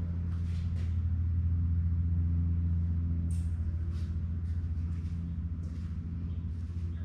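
A steady low mechanical hum, with a few faint scuffs and clicks over it.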